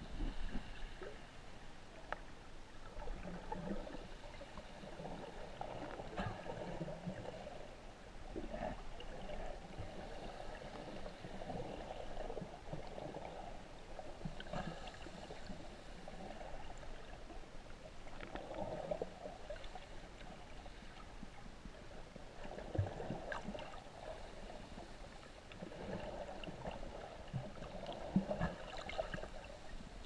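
Shallow sea water heard from underwater: muffled, uneven sloshing and gurgling that swells and fades, with a few brief knocks.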